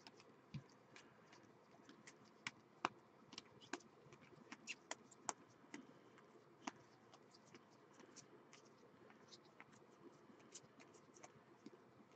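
Faint, irregular clicks and light rustles of 2013-14 Panini Elite basketball cards being flipped one by one through a stack held in the hands.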